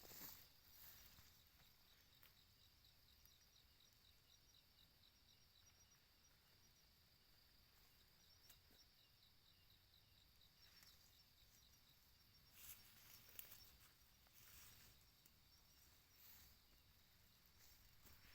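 Near silence with faint night insects, crickets, chirping steadily in a high thin trill. A few brief rustles come about two-thirds of the way through.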